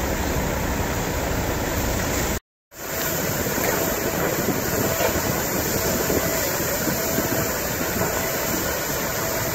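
Steady rushing roar of natural gas jetting under pressure from a drilling borehole, mixed with fire hoses spraying water and foam. The sound drops out briefly about two and a half seconds in.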